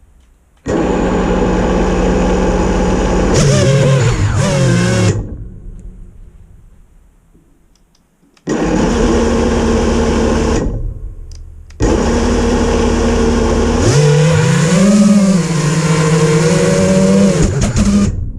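FPV racing quadcopter's brushless motors and propellers whining, twice, holding a steady pitch and then wavering up and down as the throttle changes, each run ending abruptly. The owner blames the quad's death rolls on a bad motor and an RPM filtering issue.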